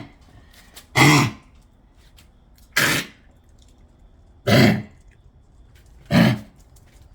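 Coughing in a series of four separate coughs, each about half a second long and coming roughly every one and a half to two seconds.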